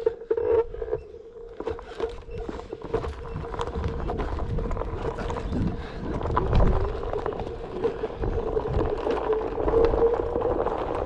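Electric one-wheeled board's hub motor giving a steady whine as it rides over a dirt trail, with the tyre rumbling and crunching on dirt, roots and twigs, loudest a little past the middle.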